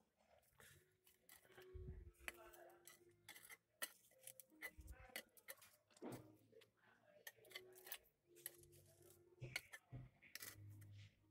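Faint, irregular rustling, crackling and scraping of damp soil and dry leaves being dug through.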